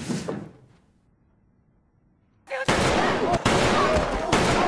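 The tail of a gunshot dies away, then comes a short hush. About two and a half seconds in, loud gunfire breaks out, with people screaming and yelping.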